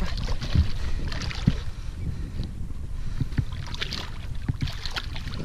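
A hooked wels catfish splashing and thrashing at the water's surface beside a small boat, heard as irregular splashes and knocks over a steady rumble of wind on the microphone.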